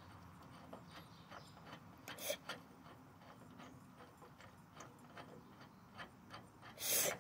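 Faint scattered clicks and light scraping of metal chandelier fittings being twisted and handled by hand, with a sharper click a couple of seconds in and a short, louder hiss near the end.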